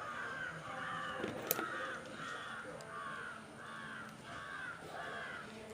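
A crow cawing over and over: about eight evenly spaced calls. There is a single sharp click about one and a half seconds in.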